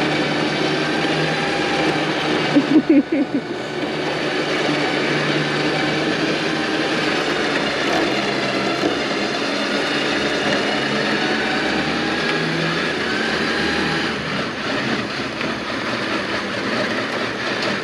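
Electric Badland winch running steadily, whining as it pulls a non-running Pontiac Trans Am up onto a car trailer, with a brief clatter of knocks about three seconds in.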